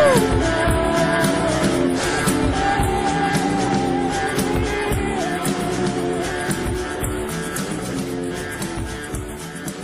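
Background music led by guitar, with a held melody line, slowly fading out.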